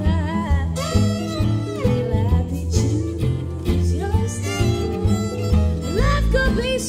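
Live gypsy-swing trio: a woman singing over harp, with acoustic guitar and fiddle. Her sung line bends and glides in pitch over the steady accompaniment.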